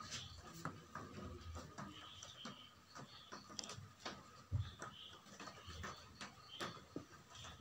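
Quiet room background with faint scattered small clicks and one soft low thump about four and a half seconds in.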